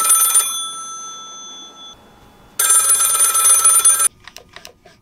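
Office desk phone ringing with an electronic multi-tone ring. One ring ends about half a second in and rings on faintly for a moment. A second ring starts after about two and a half seconds and stops short about four seconds in as the handset is lifted, followed by a few light clicks and knocks of the handset being picked up.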